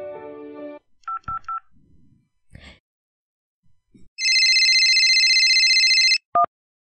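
Background music ends in the first second, then a mobile phone call is placed: three short keypad dialing beeps, a few faint clicks, and about two seconds of steady phone ringing tone from around four seconds in, followed by one short beep as the call connects.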